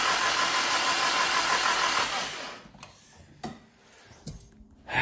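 Nissan SR20 four-cylinder engine cranking over on its starter motor with the rocker cover off, turning steadily to build oil pressure, then stopping about two and a half seconds in. A few faint knocks follow.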